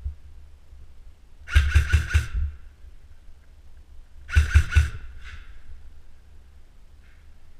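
VFC Avalon electric airsoft rifle firing two short bursts about three seconds apart, each a rapid string of clacks over a whine from the gearbox. The player is test-firing to make sure the gun still shoots.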